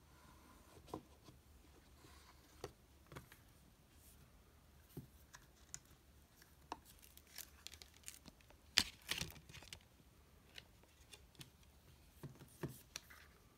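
Faint handling of a small handmade book with paper pages: it is slid out of a little drawer, set down on a tabletop and its pages and cover rustled. The sound is scattered light clicks and taps, with a louder burst of paper rustling about nine seconds in.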